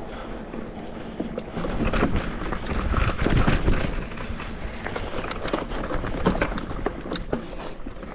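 Mountain bike ridden over a rough dirt trail: wind rumbles on the helmet or bike camera's microphone while the tyres and frame knock and rattle over bumps. The rumble is heaviest about three seconds in, and a run of sharp clicks and knocks follows in the second half.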